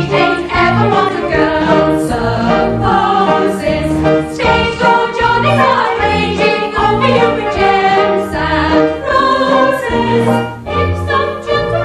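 Women's chorus singing a show tune with a theatre pit orchestra, the orchestra prominent against the voices, over a regular bass note about once a second.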